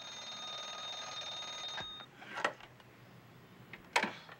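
A steady ringing alarm that cuts off suddenly about two seconds in, followed by two sharp knocks.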